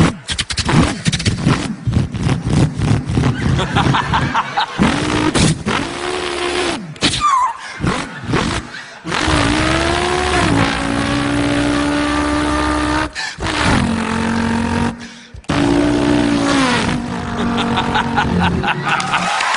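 A man imitating with his mouth the engine of a V8 Holden Torana. The first few seconds are choppy sputtering, then the revs climb and drop again and again as if shifting up through the gears.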